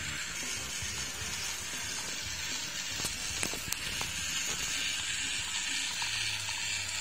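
Small battery-powered DC motor of a cardboard toy pickup truck running, a steady hissing whir, with a few faint clicks about three seconds in.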